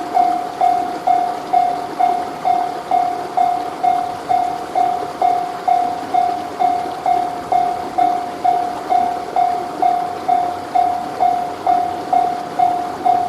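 Japanese level-crossing warning bell ringing its steady 'kan-kan' at a little over two strikes a second, each strike a single clear tone that fades quickly, with train noise underneath.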